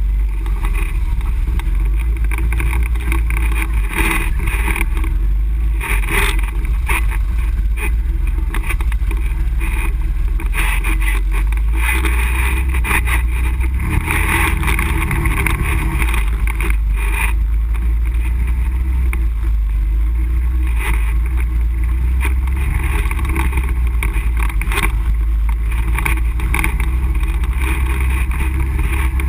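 ATV engine running steadily along a rough dirt trail, its note swelling and easing with the throttle every few seconds over a heavy low rumble, with scattered knocks from the bumps.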